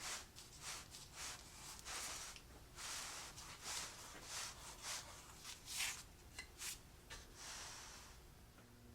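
Clamped wooden boards being slid and shifted across a tabletop: a string of irregular short rubbing scrapes.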